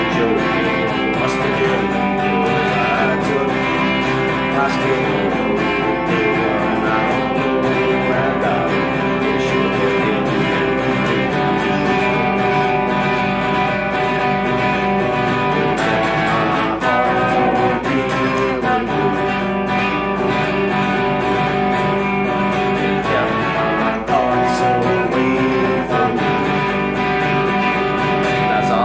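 Electric guitar playing chords and notes in an instrumental passage, steady and loud, with a few notes sliding in pitch.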